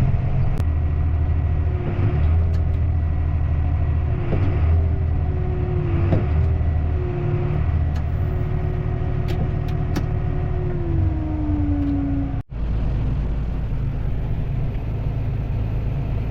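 Heavy farm machine's diesel engine and drivetrain running steadily, heard from inside the cab as a deep rumble with steady whining tones. One whine slides lower in pitch about 11 seconds in. The sound cuts out for an instant at about 12.5 seconds.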